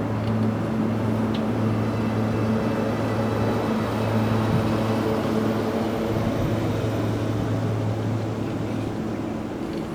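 Steady low mechanical drone of railway machinery running at a standstill, holding one constant pitch.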